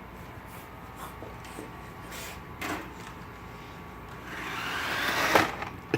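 Small electric motor of a toy remote control car whirring, growing louder from about two-thirds of the way in, with a sharp knock near the end.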